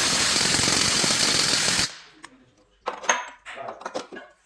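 A power impact tool runs in a rapid hammering rattle for about two seconds, then stops suddenly. Light metal clinks and knocks follow.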